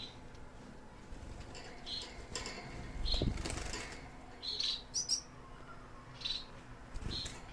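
Cage finches giving short, high chirps every second or so, with a flurry of wing flapping about three seconds in.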